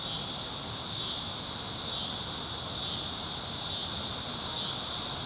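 Late-season cicada chorus, a steady high buzz that swells about once a second, thinned because most of the season's cicadas have already died off.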